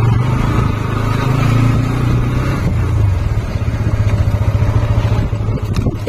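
Motorcycle engine running steadily while the bike is ridden slowly over a rough dirt track, with a brief rattle near the end.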